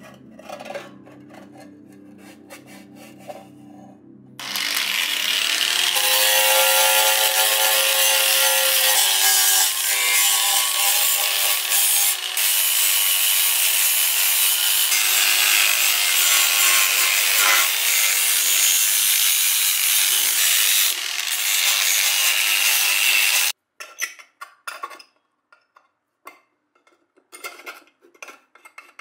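Angle grinder with a sanding disc grinding rust off a steel mess tin, starting about four seconds in, running loud and steady with a whine for about nineteen seconds, then cutting off suddenly. Light clicks from handling the tin before and after.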